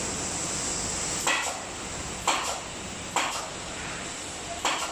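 Four short sharp clicks about a second apart from a screwdriver working at the wiring terminals of a whirlpool bathtub's control box, over a steady high hiss.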